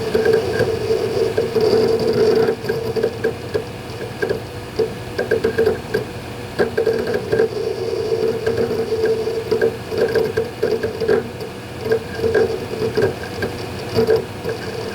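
Western Digital Ultrastar hard drives in a Synology DS220+ NAS working through a backup: irregular rapid clicks and bursts of seek noise over a steady hum.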